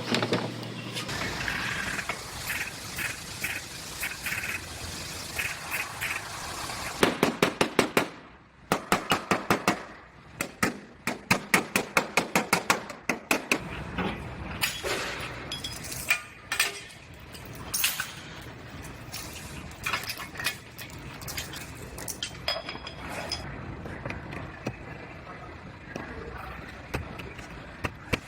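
Metal-on-metal tapping and clinking during auto body work, with quick runs of sharp taps, several a second, loudest around the middle.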